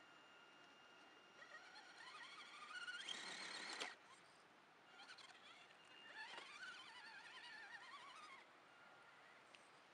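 Faint whine of an RC rock crawler's electric motor and gearbox, in two throttle bursts as it climbs. The first rises in pitch and cuts off sharply, and the second stops abruptly a few seconds later.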